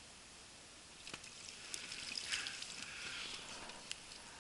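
Water splashing with a few sharp clicks, starting about a second in and easing off near the end: a crucian carp being scooped out of the water in a landing net.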